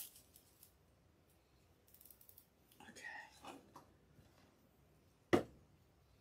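Wired ribbon crinkling and rustling as a bow is twisted tight with a pipe cleaner, then one sharp knock a little after five seconds in as a pair of pliers is picked up from the work table.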